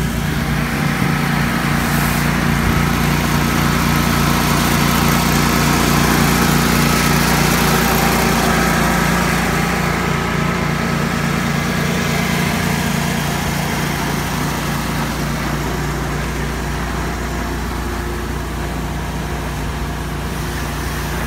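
An engine running steadily at an even speed, with a constant hum. It eases slightly in level after about ten seconds.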